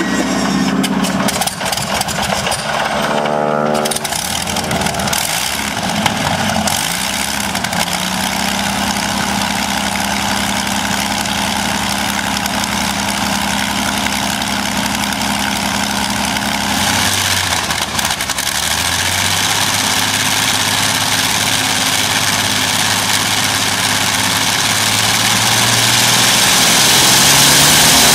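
Continental XI-1430 inverted V12 aircraft engine starting and catching in the first few seconds, then running at steady revs. About 17 s in the revs drop, then climb slowly, and it grows louder near the end.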